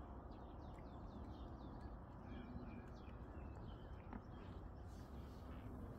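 Small birds chirping: many short, quick calls that rise and fall in pitch, faint over a steady low background noise.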